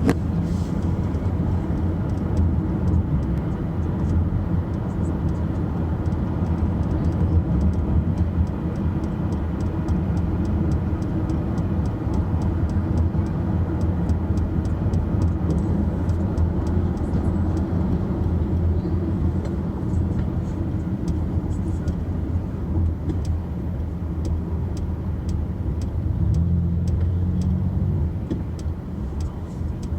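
Car running, with a steady low rumble and a light rattle repeating a few times a second: the unwanted rattling noise the owner is recording.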